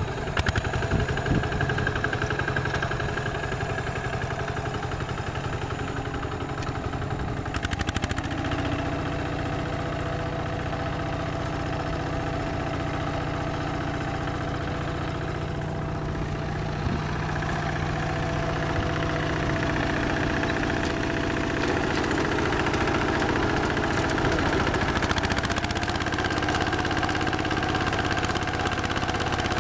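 Kubota walk-behind tractor's single-cylinder diesel engine running steadily under load while rotary tilling, with a few sharp knocks in the first two seconds and again near eight seconds.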